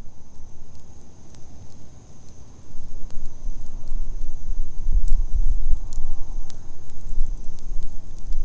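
Wood campfire crackling with scattered sharp pops, over a low rumble that swells about five seconds in. A steady high thin whine runs underneath.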